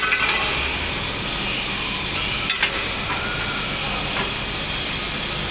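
A machine's engine running steadily, with short knocks just at the start and again about two and a half seconds in.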